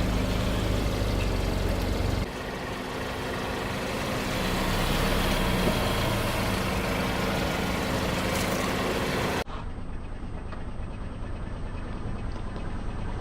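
Car engine running with a steady hum and a noisy rush over it. The sound changes abruptly twice, about two seconds in and near the three-quarter mark, where separate takes are spliced together.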